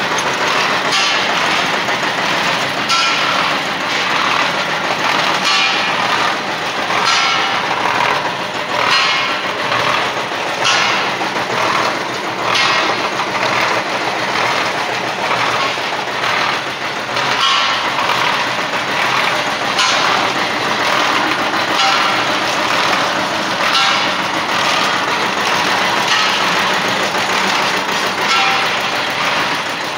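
Borewell boring machine running: its engine and gear drive turn steadily, with repeated metallic clanks from the rotating drive.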